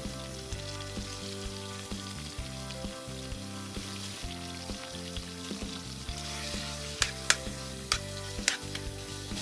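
Liver frying in a pan with a steady sizzle that grows louder about six seconds in, and a few sharp clicks near the end, over background music.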